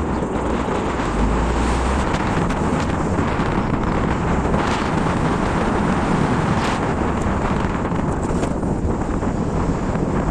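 Steady wind noise on the microphone together with road noise from a moving pickup truck.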